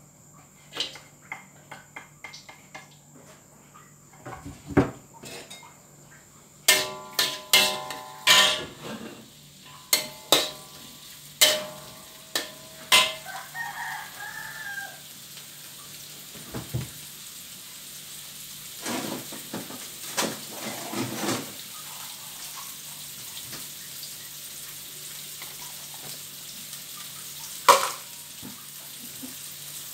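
Metal clanks of a utensil against a wok and pot, some ringing, then a steady sizzle of food frying in hot oil in the wok over a gas burner, which grows from about halfway through. A rooster crows once, briefly, around the middle.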